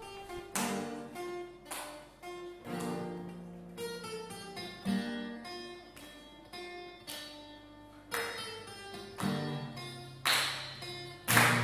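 Two acoustic guitars playing a slow instrumental intro, picked chords struck every second or so and left ringing, with a couple of firmer strums near the end.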